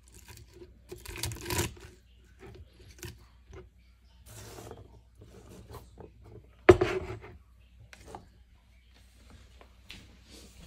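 Chopped celery pieces being gathered off a plastic cutting board by hand and dropped into a glass blender cup: scattered rustles, clicks and knocks, with one loud knock about two-thirds of the way through.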